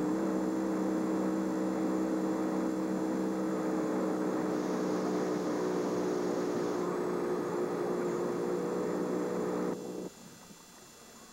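Boat motor running at a steady speed, a constant engine drone that cuts off suddenly about ten seconds in.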